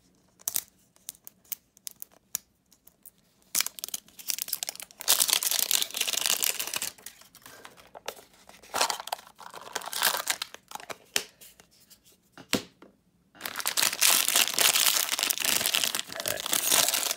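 A plastic toy capsule clicking as it is handled and prised apart, then a thin plastic wrapper bag crinkling and being torn open in several loud stretches, the longest near the end.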